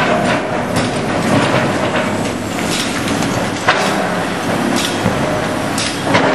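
Heavy demolition machinery running steadily while tearing into the concrete stadium structure, with scattered sharp cracks and clatter of breaking debris; one louder crack a little past the middle.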